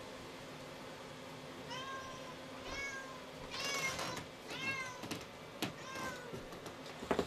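A cat meowing about five times in short, high-pitched calls, with a few sharp clicks and knocks in between and a quick cluster of louder taps near the end.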